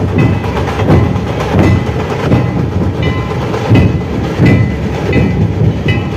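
Dhol-tasha troupe of many dhol barrel drums played together, a heavy beat about every two-thirds of a second over a dense stream of fast stick strokes.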